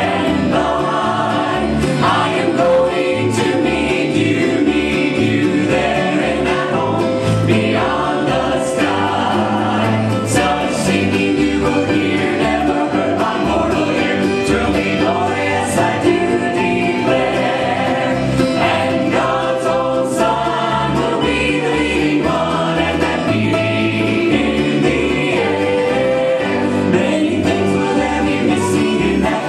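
A mixed four-voice gospel group, two women and two men, singing an old gospel hymn in four-part harmony over an instrumental backing with a steady, regularly pulsing bass line.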